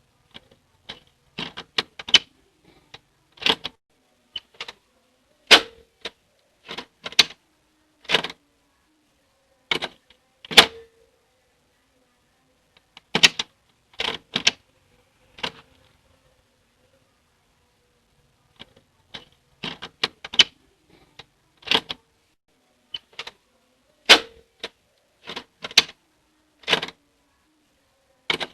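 Door knob being gripped, turned and let go again and again, its latch and spindle clicking and clacking in short irregular clusters, with a pause of a couple of seconds midway.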